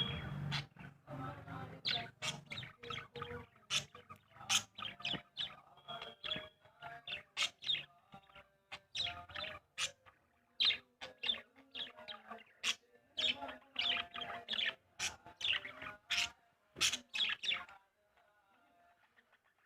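Small birds chirping and tweeting in quick, irregular bursts of short sharp calls, falling silent near the end.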